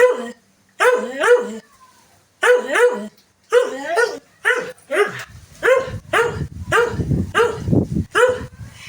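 A dog barking over and over at a washing machine, agitated, in quick repeated barks that come faster in the second half. A low rumble starts underneath about five seconds in.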